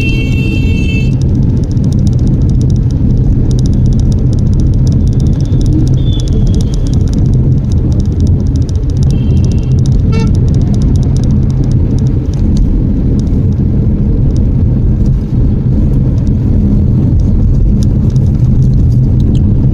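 Steady low rumble of engine and tyre noise inside the cabin of a Citroen C3 Aircross, its 1.2-litre turbo-petrol three-cylinder engine pulling gently at low revs while cruising at about 40–45 km/h.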